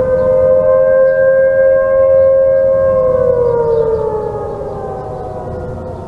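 Several outdoor tornado warning sirens, a mix of Federal and A.S.C. sirens, sounding together from a distance. Their tones hold steady as a chord of several pitches for about three seconds, then slide down together and fade somewhat.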